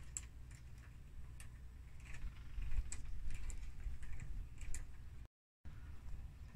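Irregular small metallic clicks and ticks of a hand screwdriver backing out doorknob screws, over low handling rumble; the sound drops out completely for a moment about five seconds in.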